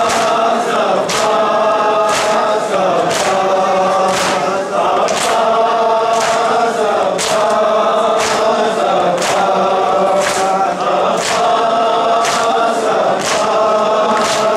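A crowd of men chanting a noha, a mourning lament, together as a choir. They keep time with sharp hand slaps on their chests about once a second, the rhythm of matam.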